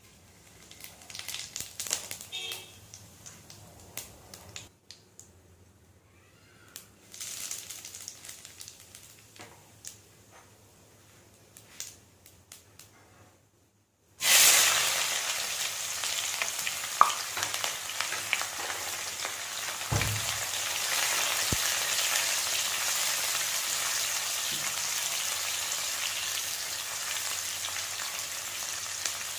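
A few quiet kitchen clicks and knocks, then about halfway through a sudden loud sizzle as food starts frying in hot oil, which keeps up as a steady crackling hiss.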